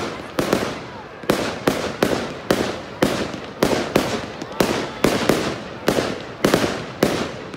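Fireworks display: a rapid run of sharp bangs, about two a second, each fading away before the next.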